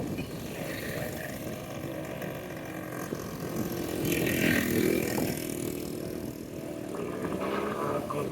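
A small engine running, growing louder about four seconds in and then easing off.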